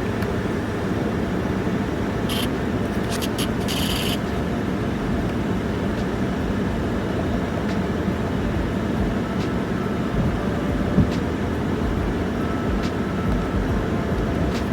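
Steady running noise of a pickup truck, with a few short clicks and a brief hiss about two to four seconds in.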